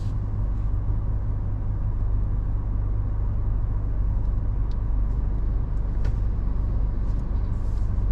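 Steady low rumble of a car's engine and tyres, heard from inside the cabin while driving slowly on a rough, patched road, with a couple of faint ticks.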